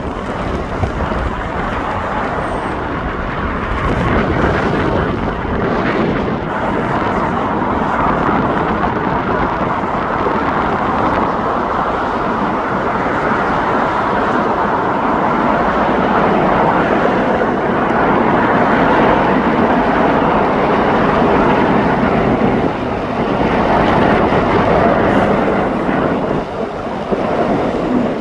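Boeing E-737 Peace Eye airborne early-warning jet's twin turbofan engines passing overhead: a steady jet rumble that swells a few seconds in, holds, and eases off near the end.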